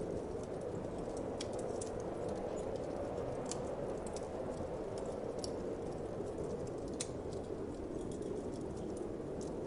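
Wood fire crackling with irregular sharp pops and snaps, a few a second, over a steady low whoosh of winter wind.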